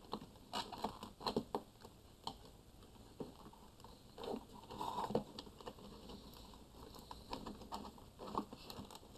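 Faint irregular clicks, rustles and scrapes of servo leads and a small plastic-cased receiver being pushed by hand into the foam fuselage of an RC plane.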